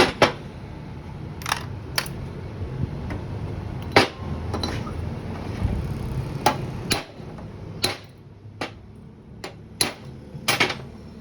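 Hand tools knocking and clicking against motorcycle engine parts during repair: about a dozen sharp knocks at irregular intervals, over a low steady hum that fades after about eight seconds.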